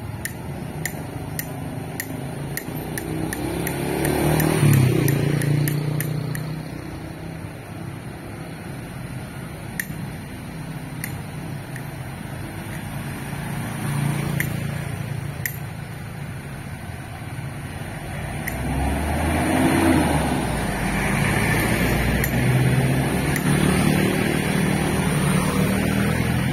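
Road traffic: cars and motorcycles driving past one after another, engine noise swelling and fading with each pass. The loudest passes come about five seconds in and around twenty seconds, and a steadier run of motorcycle engines continues toward the end.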